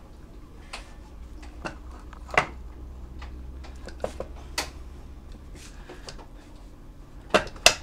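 Metal gearbox parts of a Honda C70 motorcycle engine clinking and tapping as the gear shafts are fitted into the open crankcase by hand: scattered light clicks, with a few sharper taps near the end.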